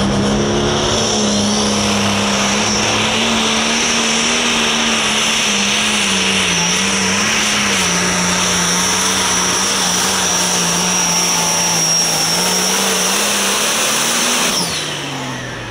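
Limited Pro Stock pulling tractor's turbocharged diesel engine running hard at full throttle during a pull, with a steady high turbo whine over the engine note. Near the end the engine pitch and whine slide down and it gets quieter as the tractor comes off the throttle at the end of the run.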